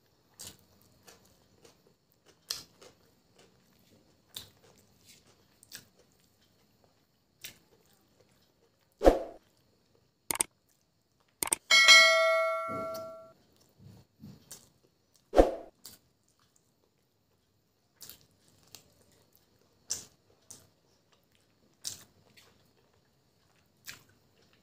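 Close-miked mouth and eating sounds from biryani eaten by hand: soft chewing and lip clicks scattered throughout. About halfway through, a subscribe-button sound effect plays: a couple of quick clicks and a bell ding that rings and fades over about a second and a half, set between two louder thuds a few seconds before and after.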